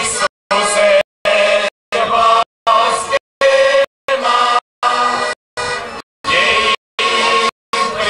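Large mixed group of men's, women's and children's voices singing a folk song together in chorus. The sound is cut by brief dropouts about every half second.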